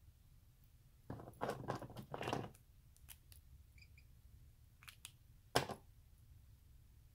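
Small handling noises of painting supplies: a watercolor brush swished and tapped in a glass water jar for a second or so, then a few light clicks and a brief ring of glass, and one sharper click about five and a half seconds in.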